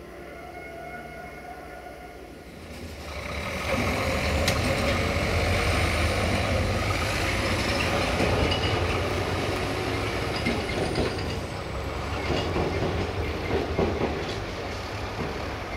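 Heavy vehicle passing close by: a low rumble swells in about three seconds in, holds, then eases off near the end, with a faint high whine over the middle.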